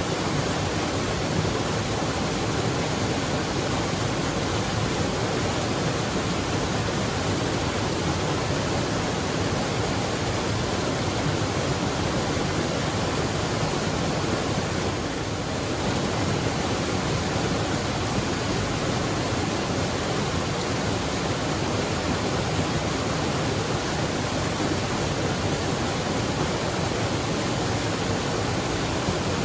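Waterfall pouring: a loud, steady rush of falling water, with only a brief slight dip about halfway through.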